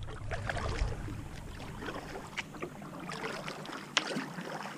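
Kayak paddling: the paddle dipping and splashing on each stroke, with water dripping and lapping against the hull and a few sharper splashes.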